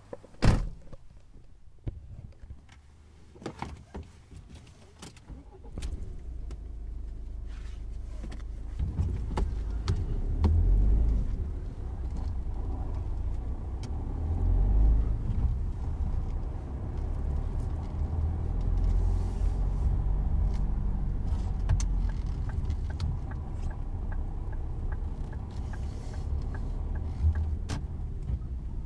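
A sharp click about half a second in, then a low motor-vehicle rumble that starts about six seconds in, swells a few seconds later and carries on unevenly. A faint regular ticking joins near the end.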